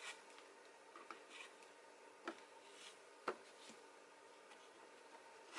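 Near silence: quiet room tone with a few faint, short clicks and taps, the loudest about three seconds in.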